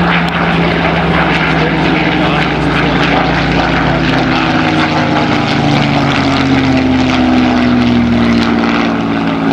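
Spitfire's V12 piston engine running as the fighter flies by, a steady propeller-aircraft drone. Its pitch falls slowly in the second half.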